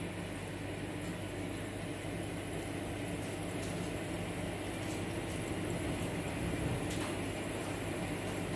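Hail and rain pelting rooftops and brick walls: a dense, steady hiss with scattered sharper ticks of hailstones striking. A steady low hum runs underneath.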